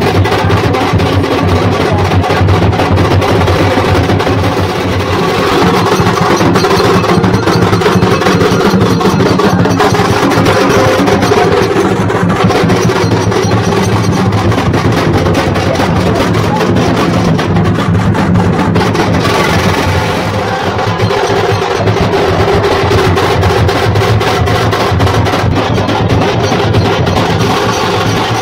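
A band's drums beating a fast, loud, continuous rhythm with music over them.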